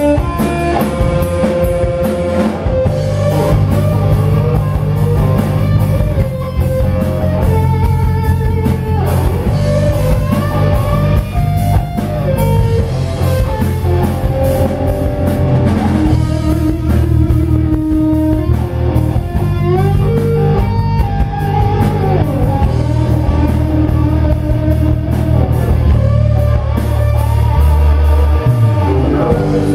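Rock band playing live without vocals: guitar lines with bent, held notes over a drum kit.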